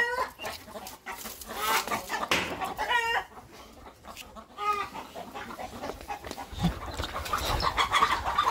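Chickens clucking and squawking in several short, sharp calls, the flock stirred up by a dog loose in their enclosure. A scuffling noise builds near the end.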